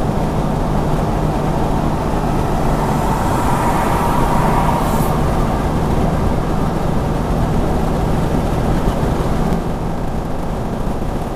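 Steady engine and road noise of a car cruising at highway speed, heard from inside the vehicle, with a low engine hum under the tyre noise. Near the end the hum drops away and the sound eases slightly.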